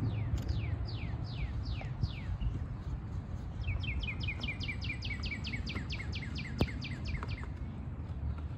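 A songbird singing: a string of falling whistled notes, then a quicker run of short notes at about five a second from about three and a half seconds in, over a steady low rumble. One sharp click about six and a half seconds in.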